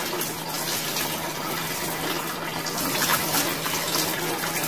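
Water poured from a plastic dipper over a bather, splashing onto a concrete floor in a steady rush, with a faint low hum underneath.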